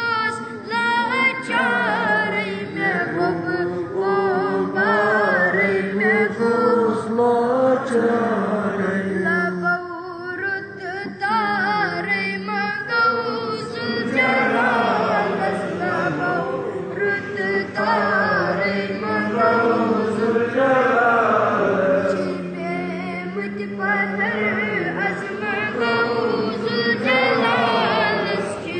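A young child singing a Kashmiri naat, a devotional song in praise of the Prophet, in a melodic chant. The singing comes in long phrases with short breaks between them.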